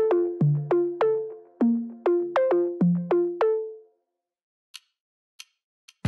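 Background electronic music: a run of notes with sharp attacks that die away, about three a second, ending about four seconds in. Then three faint clicks in near silence.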